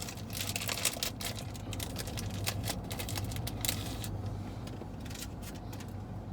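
Quick crinkling and crackling of a paper food wrapper being handled, busiest for the first four seconds and then mostly dying away, over a steady low hum.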